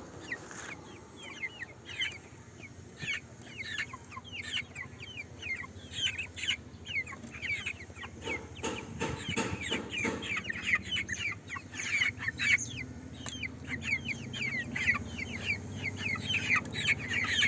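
A flock of young Kuroiler chicks peeping: many short, falling chirps overlapping, busier in the second half, over a low steady hum.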